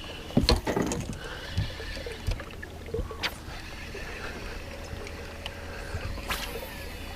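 Scattered knocks and clatter aboard a small fishing boat over a steady low hum, with a thin steady whine coming in about six seconds in.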